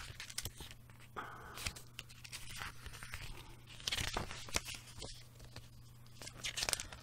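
Paper rustling as the pages of a CD booklet are opened and turned by hand, in several short spells, the loudest about a second in and about four seconds in.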